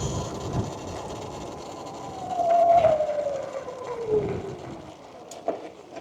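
A small off-road motorcycle engine running, its pitch sliding steadily down over about two seconds midway through, over a low rumble.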